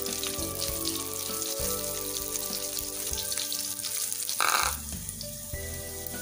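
Hot oil sizzling in a frying pan as square pieces are shallow-fried and turned over one by one, with a brief louder burst of noise about four and a half seconds in.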